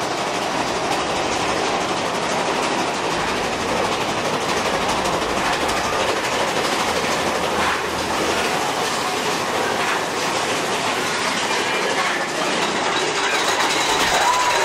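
Mine-train roller coaster cars running along the track, a steady clatter of wheels and cars that holds at one level throughout.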